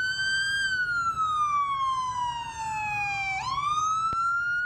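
Police car siren wailing: one long, slow fall in pitch, then a quick rise back up about three and a half seconds in, over the low rumble of passing traffic.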